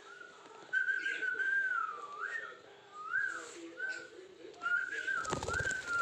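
Whistling: a single clear tone rising and falling in short wavering phrases, with a brief rustling burst about five seconds in.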